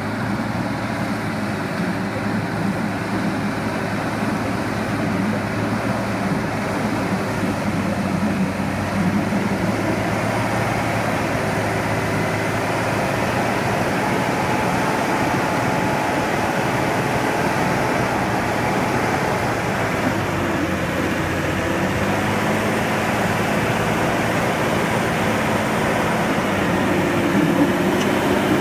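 Hürlimann SX-1500 tractor's diesel engine running steadily under load while ploughing. Its engine note dips and recovers about twenty seconds in and again near the end.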